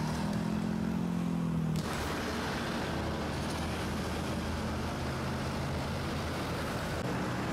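Road traffic on a multi-lane highway: a steady rush of passing cars and trucks. For the first two seconds a steady engine drone runs over it, then cuts off abruptly.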